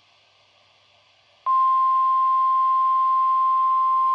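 About a second and a half of near silence, then a loud, steady single-pitch alert tone starts suddenly and holds: the 1050 Hz warning alarm tone of a NOAA Weather Radio Emergency Alert System broadcast, sounding for a Severe Thunderstorm Watch.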